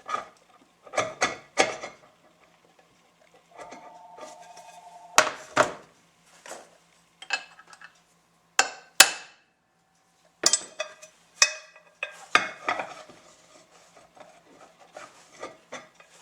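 Irregular sharp metal clinks and knocks, about a dozen, some ringing briefly, as the steel parts of a UFO orbital floor-sander attachment are handled and its bottom plate is fitted over the freshly seated bearings.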